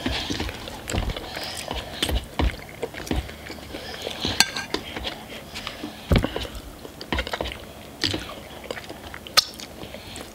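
Metal forks stirring and tapping inside ramen noodle cups, with irregular clicks and knocks, mixed with people chewing food. One bright ringing clink about four seconds in.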